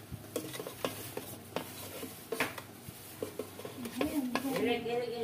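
Metal kitchen tongs and food pieces clicking and knocking irregularly against a nonstick air fryer basket as roasted chicken is moved around. A person's voice comes in near the end.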